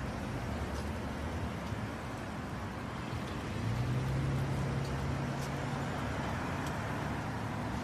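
Steady street traffic noise, with a low engine hum swelling up about three and a half seconds in and easing off after about six seconds.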